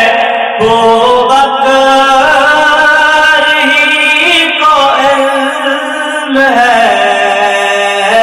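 A man's voice singing an Urdu naat, a devotional poem in praise of the Prophet, drawing out long held notes that bend and slide in pitch.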